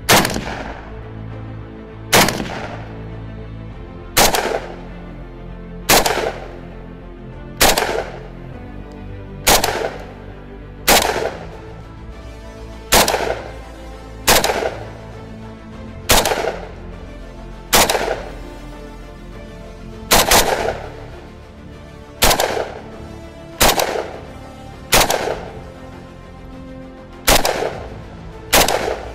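A Norinco NHM-91 semi-automatic 7.62x39 rifle firing single shots, one every one and a half to two seconds, each with a long ringing echo, over a steady music bed.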